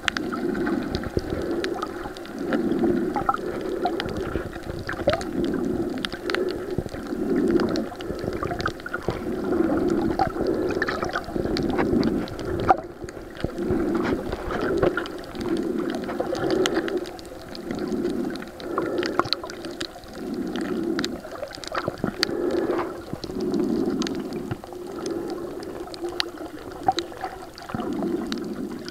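Underwater sound picked up by a submerged waterproof compact camera: muffled water swishing that swells about every second and a half, with scattered faint clicks and ticks throughout.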